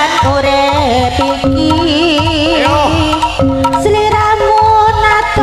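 Live Javanese jaranan music played loud through a PA system: hand-drum rhythm under held gamelan tones and a wavering, ornamented melody line.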